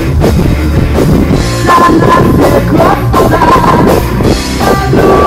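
Live rock band playing loud, with electric guitars, bass and drum kit, recorded on a mobile phone with muffled, distorted sound. A woman's singing voice comes in about a second and a half in.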